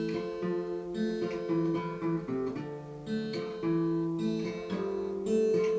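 Acoustic guitar strummed as song accompaniment, chords ringing and changing every second or so between sung lines.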